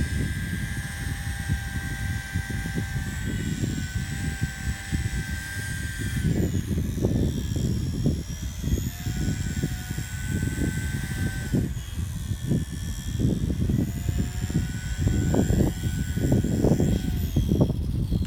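ALIGN T-REX 150X micro electric RC helicopter in flight: a high, steady motor and rotor whine that rises and dips a little with throttle, and slides down near the end as it spools down. Gusty wind rumbles on the microphone throughout.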